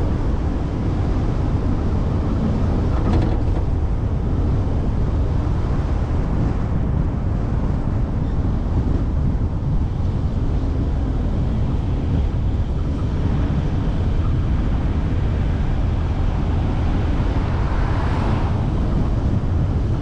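Steady low road and engine rumble of a car driving at moderate speed, heard from inside the cabin. A brief rushing swell rises and fades near the end.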